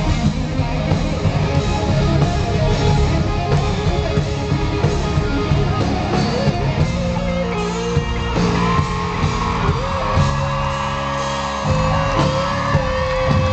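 Live rock band playing at concert volume, electric guitar over a steady drum beat, heard from within the audience. A long held note comes in about eight seconds in and carries on.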